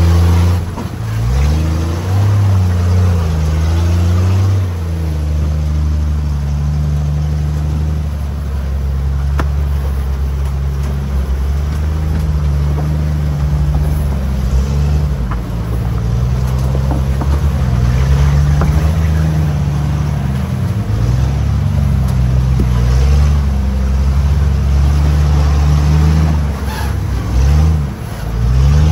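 Off-road vehicle's engine running under load at low revs, its pitch rising and falling again and again as the throttle is worked on the trail.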